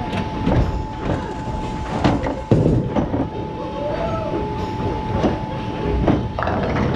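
Bowling ball rolling down a wooden lane with a continuous low rumble, amid the scattered knocks and clatter of balls and pins in a bowling alley.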